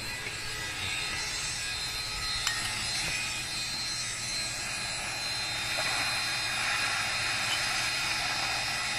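A steady mechanical whir with a high whine, getting a little louder about two-thirds of the way through.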